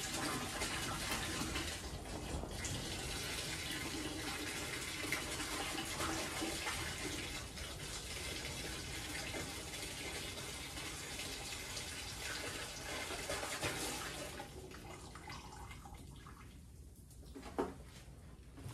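Windshield washer fluid pouring from a plastic jug into a plastic bucket, a steady pour that stops about fourteen seconds in. A light knock comes near the end.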